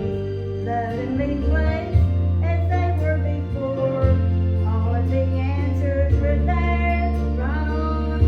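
A woman singing a slow song over instrumental accompaniment, with held bass notes underneath that change every couple of seconds.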